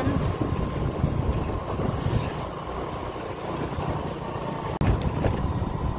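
Wind rumble on the microphone and road and engine noise from a moving two-wheeler, steady throughout, with a brief break in the sound about five seconds in.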